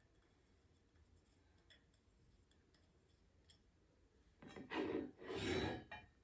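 Quiet, then about four and a half seconds in two short, loud scraping rubs as parts of a flat-pack coffee table are worked together during assembly.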